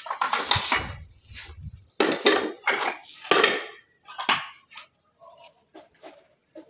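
Irregular clatter of hard clinks and scrapes from stone installation work: a run of strokes over the first few seconds, then fainter, sparser taps near the end.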